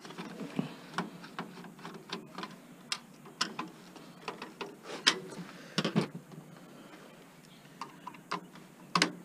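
Irregular clicks and light knocks of hand tools against a computer's metal and plastic parts while it is being worked apart, with a few sharper knocks in the second half.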